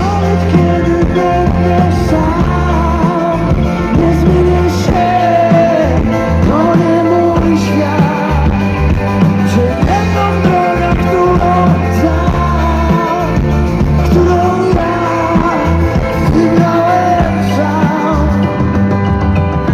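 Live rock band playing through a large concert PA: a lead melody that bends in pitch over heavy bass and steady drums.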